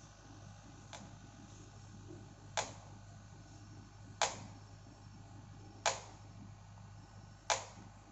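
Four sharp knocks or clicks, evenly spaced about a second and a half apart, each with a short ringing tail, over a steady low hum.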